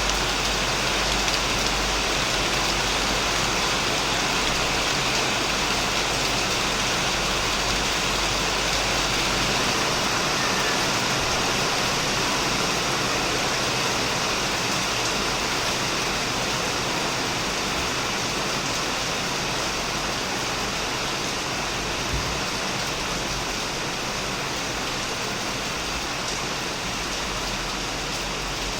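Heavy rain falling steadily on a shed roof, a dense even hiss of drops with no let-up.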